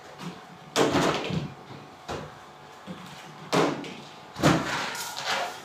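Three short scuffling thumps from a balloon-balancing game, one about a second in and two near the end: a rubber balloon being batted by hand while plastic balls are handled.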